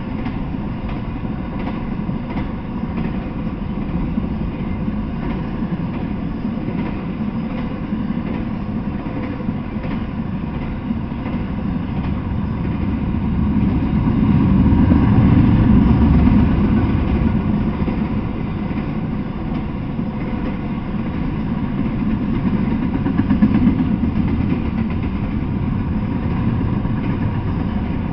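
Double-stack intermodal freight train rolling past: a steady low rumble of the train's cars and wheels on the rails, swelling louder about halfway through and briefly again later.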